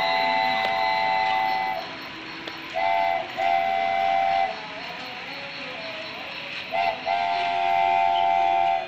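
Battery-powered toy steam locomotive's electronic whistle sounding a chord of steady tones: one long blast, then a short and a long blast, then a short and a long blast near the end. Between the blasts the toy train rattles steadily along its plastic track.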